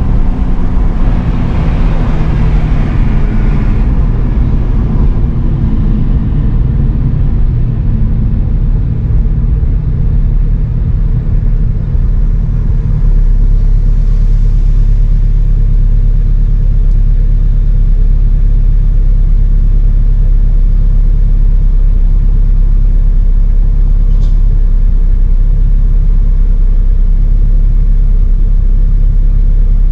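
Turbocharged Honda K20 four-cylinder engine of an Acura RSX Type-S, its revs falling over the first few seconds, then settling into a steady low drone about halfway through. A single faint tick is heard near the end.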